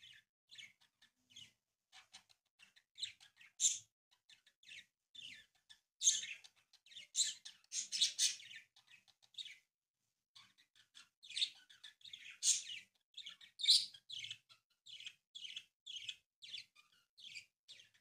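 Origami paper crackling and rustling in short, irregular bursts as it is folded and creased by hand, with a brief lull about halfway through.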